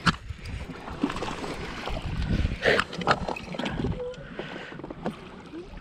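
A hooked bass being fought beside a fishing boat: splashing with a run of irregular knocks and clicks.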